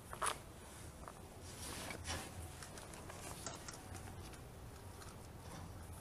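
Faint rustling and scraping, with a short sharper rustle just after the start and a few softer ones after it.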